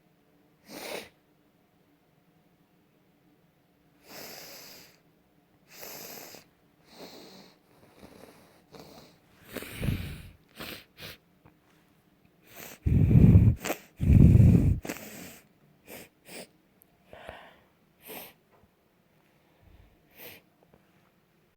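A person sneezing: short, sharp breaths and sniffs build up, with a smaller burst about ten seconds in, then two loud sneezes about a second and a half apart, followed by a few sniffs.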